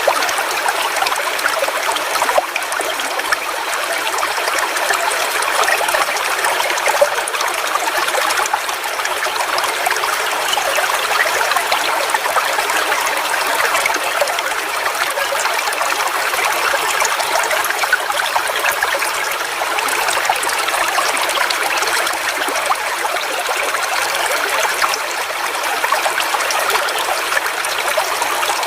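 Waterfall: water falling and splashing in a steady, even rush, with fine splashing detail and little deep rumble.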